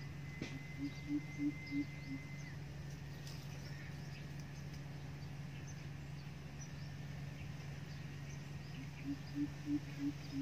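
Coucal calling a run of about six deep, evenly spaced hoots, then the same run again near the end.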